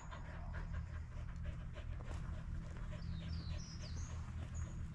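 A dog panting in a quick, even rhythm, with a few short falling bird chirps about three to four seconds in.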